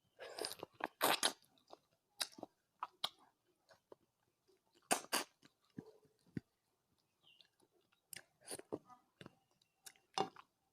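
Close-miked mouth sounds of a person eating rice with curry: irregular bursts of wet chewing, smacking and crunching bites, with short pauses between mouthfuls.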